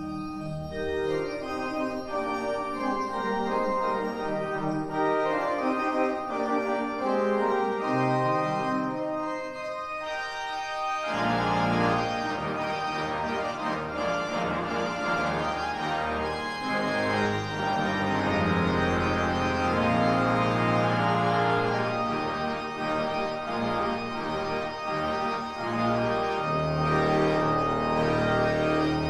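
Pipe organ playing sustained chords; about eleven seconds in, deep pedal bass and a fuller, louder sound come in and hold.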